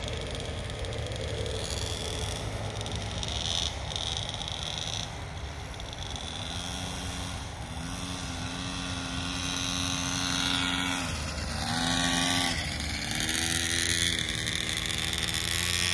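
Small youth dirt-bike engines buzzing at low speed, the pitch holding steady for a while, then rising and falling a couple of times near the end as the throttle is opened and closed.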